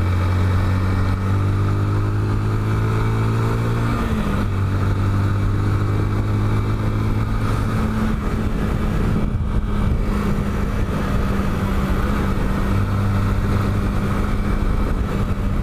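Motorcycle engine running on the move, with wind and road noise. The engine note rises, drops suddenly about four seconds in, then holds steady.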